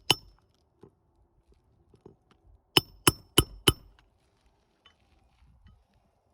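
Hammer striking metal, each blow a sharp ringing clink: one just after the start, then four quick blows, about three a second, a little under three seconds in.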